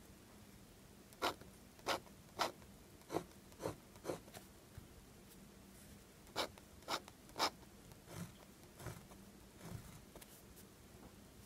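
Pilot Falcon (Elabo) 14K gold soft extra-fine fountain pen nib scratching across paper in short, separate strokes: a group of six quick strokes, a pause of about two seconds, then six more, the last three softer.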